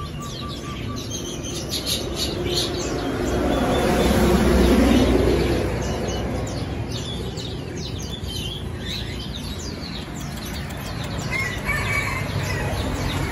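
Small birds chirping repeatedly, quick high notes. A rushing noise swells and fades about four to five seconds in.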